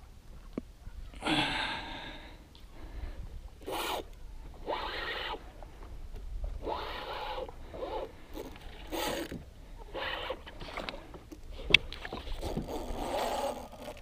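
Spinning reel cranked in short rasping bursts while fighting a hooked fish, about one burst every second or two. There is one sharp click about two-thirds of the way through.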